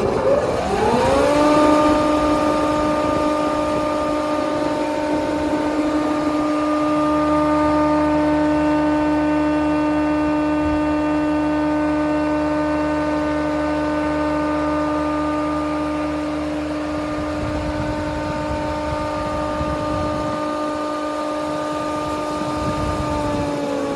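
Żefam surface planer's four-knife cutterhead, driven by a motor of about 4 kW, spinning up to speed with a rising whine over the first second or so. It then runs at a steady high whine. A lower drone joins for about ten seconds in the middle, and near the end the pitch starts to drop as the machine begins to wind down.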